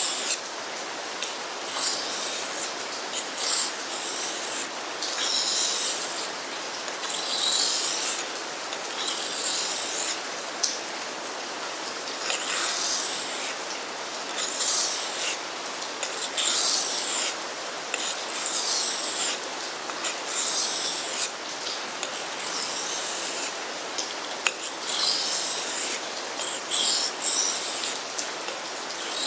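Becker BK7 knife blade being drawn along a combination sharpening stone in repeated full-length strokes, a scraping rasp roughly every second or two.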